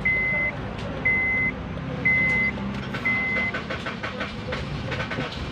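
A Honda Civic FD's dashboard warning chime beeps about once a second, four times, over the starter cranking the 1.8-litre four-cylinder engine. The long crank comes from fuel drained out of the line during the fuel filter change.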